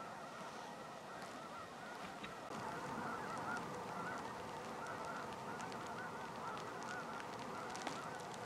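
A large flock of snow geese calling, a dense chatter of many overlapping honks that grows louder about two and a half seconds in.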